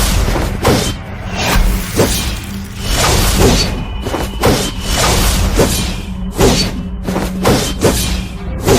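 Music with a heavy, thudding beat of about two hits a second over a held low note.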